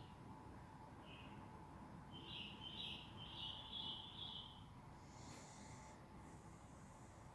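Sleeping beagle breathing faintly, with a soft high-pitched whistle through the nose for a couple of seconds midway.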